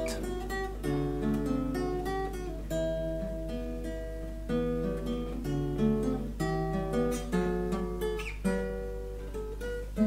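Background music: an acoustic guitar playing slow chords, each left to ring, changing about once a second.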